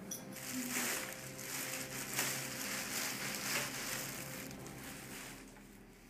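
Soft, irregular rustling and scuffling with light taps as dogs jump and jostle on a rug, fading away near the end.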